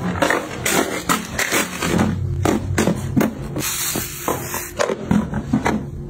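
Close-up handling sounds of things being picked up and set down: a dense, irregular run of clicks, knocks and rustling over a low steady hum.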